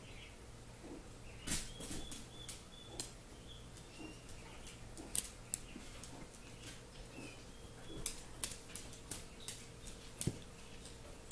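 Chihuahua and cat play-fighting on a blanket-covered couch: irregular scuffs, taps and rustles of paws and claws scrabbling on fabric, with a few sharper knocks.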